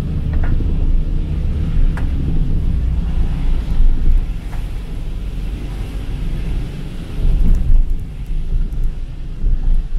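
Car driving on a rain-soaked road: a steady low rumble of engine and tyres on wet tarmac, with the hiss of rain and spray and a few faint ticks.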